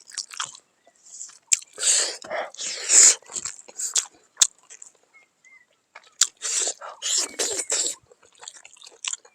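Close-up chewing and biting on pork, in irregular bursts with crunches and sharp clicks, pausing briefly around the middle.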